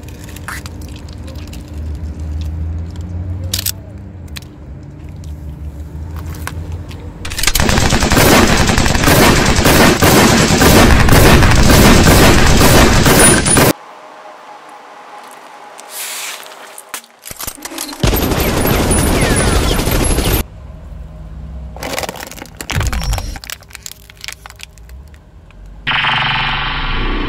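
A car tyre rolling over and crushing toys and objects on asphalt, in several separate clips: a low rumble of the slow-moving car, then long stretches of loud, dense crackling and popping as things break under the tyre, and a few sharp cracks. Near the end a synthetic effect with sweeping tones sets in.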